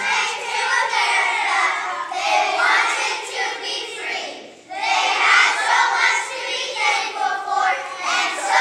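A group of children singing together, with a brief break between phrases about four and a half seconds in.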